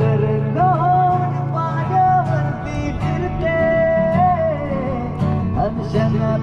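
Live music: a singer holding long, wavering notes over guitar accompaniment.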